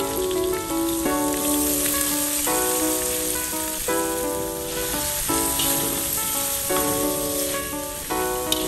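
Background music of sustained chords that change about every second, over the steady sizzle of noodles stir-frying in a hot wok.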